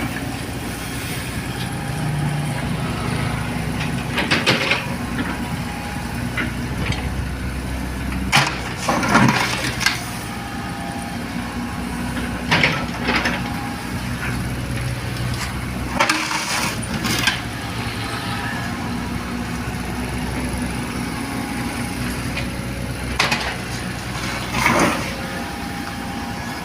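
Excavator's diesel engine running steadily, with several short scraping or clattering bursts spread through the time, typical of the bucket working a load of sand.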